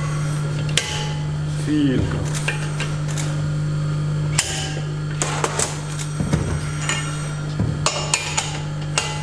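Irregular sharp metallic clicks and clinks from a breaker bar and socket on a flange counter-holder as the pinion nut of a BMW E36 rear differential is tightened, over a steady low hum.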